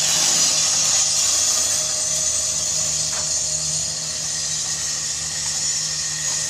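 Steady machine noise: an even hiss with a low hum underneath, holding level throughout.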